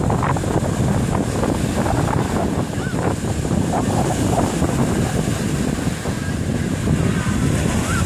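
Waves breaking into surf on a sandy beach, a constant dense rush of water, with strong wind buffeting the microphone.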